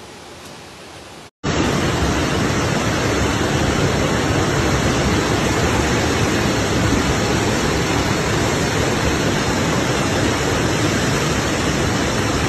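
Fast-flowing floodwater rushing past in a loud, steady noise. A quieter stretch of water noise breaks off about a second in, and the louder rushing starts after a brief gap.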